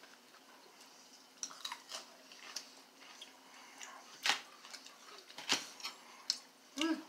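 Forks clicking lightly on plates and mouth sounds of eating, as scattered clicks with a louder one about four seconds in. A brief hum from one of the eaters comes near the end.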